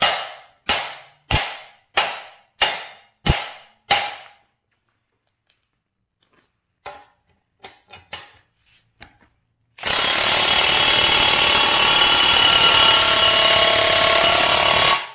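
Seven hammer blows on a steel ball joint press and knuckle, about one every two-thirds of a second, each ringing briefly: tapping to ease the pressure on a ball joint being pressed in. A few lighter knocks follow. Then a cordless impact wrench runs loudly for about five seconds, driving the press screw to push the upper ball joint into the knuckle.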